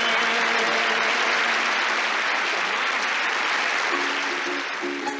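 Studio audience applauding, dying down near the end as short repeated plucked-string notes start up about four seconds in, the opening of the next song.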